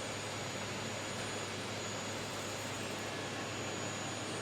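Elegoo OrangeStorm Giga 3D printer vibrating its print head on the X axis during input-shaping resonance calibration: a steady mechanical hum and buzz carried through the metal frame.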